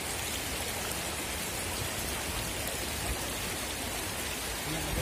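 Shallow river water running and splashing over rocks, a steady hiss.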